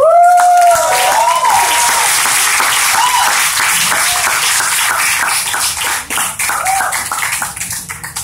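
Audience clapping and cheering, with a loud whoop right at the start and a few shorter whoops after it; the clapping thins out near the end.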